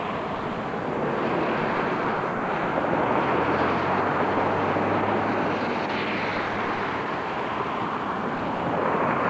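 Steady rushing outdoor noise, with a low hum that comes in for a few seconds in the middle.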